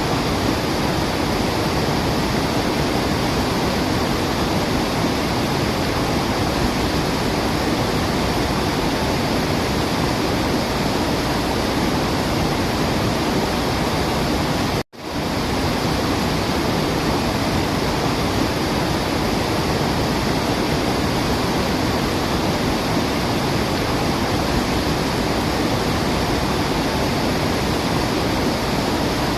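Steady rush of a waterfall: an even hiss of falling water with no birdsong standing out. It cuts out for a split second about halfway through, then comes straight back.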